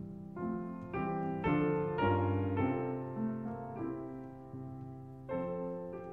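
Background piano music: a slow run of single notes and chords, each note struck and left to fade.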